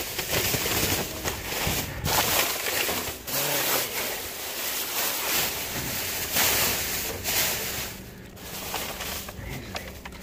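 Plastic trash bags crinkling and rustling as they are handled, in uneven stretches broken by a few brief pauses.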